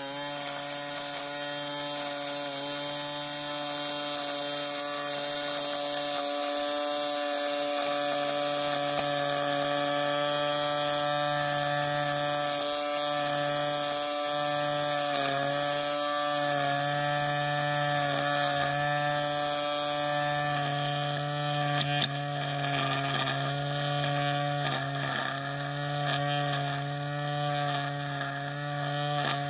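Greenworks 40V cordless string trimmer's electric motor spinning up at once and running with a steady high whine while edging ground cover; the pitch dips briefly a few times as the line takes the load, with one sharp click about 22 seconds in.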